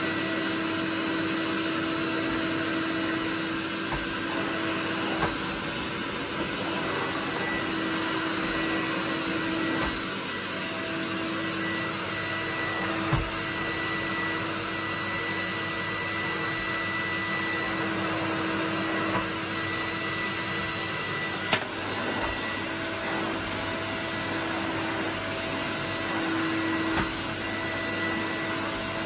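Numatic David cylinder vacuum cleaner running steadily, a motor hum with a held whine, while its floor tool is pushed over carpet. A few light knocks sound now and then.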